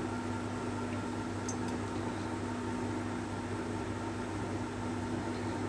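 Steady machine hum with an even hiss and a low held tone, from a running kitchen appliance, unchanging throughout.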